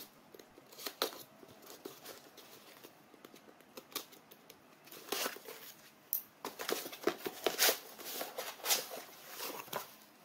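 Cardboard shipping box being opened: a utility knife slitting the packing tape and cardboard with short, sparse scrapes, then a busier run of cardboard rustling and scraping about six seconds in as the end flap is opened and the inner box is handled inside.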